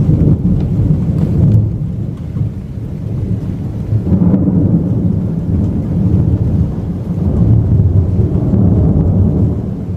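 Thunder from a severe thunderstorm rumbling continuously in long rolls, swelling near the start, about four seconds in and again around eight seconds.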